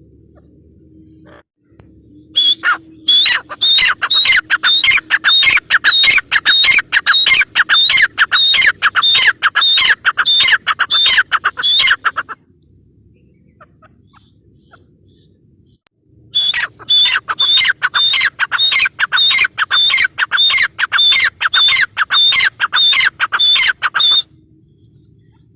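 Gray francolin (teetar), given as a female, calling in two long bouts of rapid, evenly repeated sharp notes that slide downward, about three a second, with a pause of a few seconds between the bouts.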